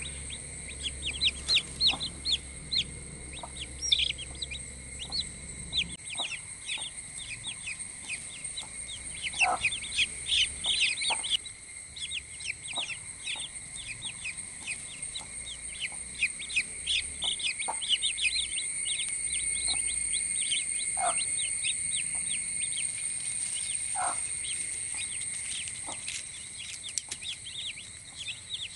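Newly hatched chicks peeping, many short, rapid, falling cheeps one after another, with a few lower clucks from a hen among them. A steady high-pitched whine runs underneath.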